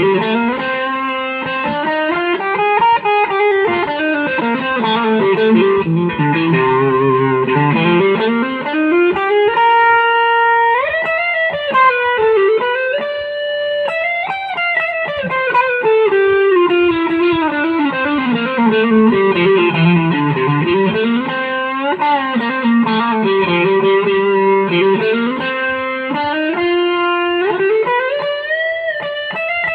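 Electric guitar playing a fast melodic solo, notes running quickly up and down in sweeping runs, with a few longer held notes near the middle.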